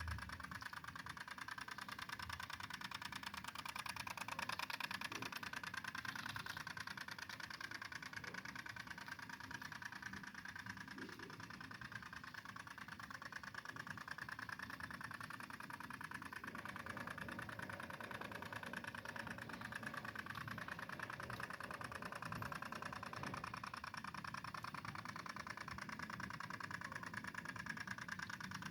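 Two-stroke engine of a G 1000 mini tiller running steadily.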